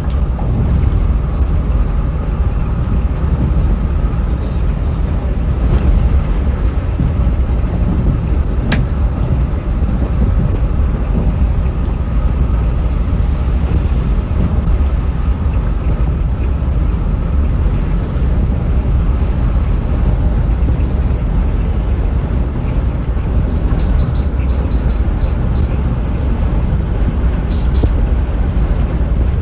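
Scania K360iB coach travelling at speed, heard from inside the cabin: a steady low rumble of engine and road noise, with a faint sharp tick about nine seconds in.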